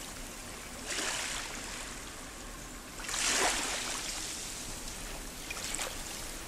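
Small waves washing in over beach rocks, the hissing wash swelling about a second in, more strongly about three seconds in, and faintly again near the end.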